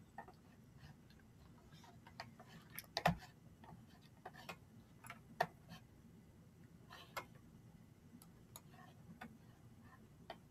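Faint, irregular clicks and taps, a few of them a little louder, over a low steady room hum.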